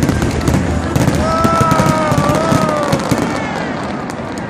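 Fireworks crackling and banging in rapid volleys, thinning out toward the end.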